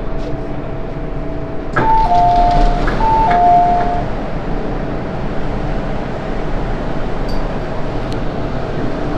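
MTR M-train doors opening: a click as they release, then a two-note descending door chime sounded twice, over the steady hum of the train's equipment.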